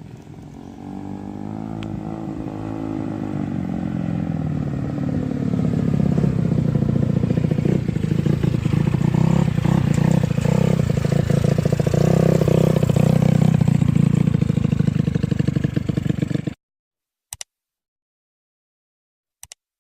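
Honda Vario scooter engine, bored up to 160cc and running on a carburettor, running while it warms up; it grows louder over the first several seconds, runs steadily, then cuts off suddenly a few seconds before the end.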